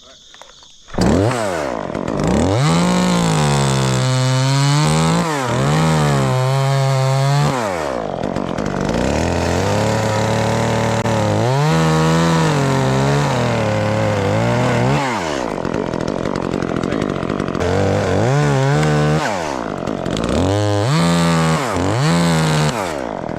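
Chainsaw starting up about a second in and cutting the notch and back cut in a tree, its engine revving up and dropping back over and over, the pitch sagging and recovering as the chain bites into the wood.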